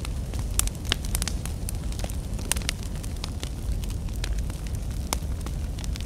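Wood campfire burning: a steady low rumble of the flames with frequent sharp crackles and pops from the burning logs, bunched in a quick cluster about a second in.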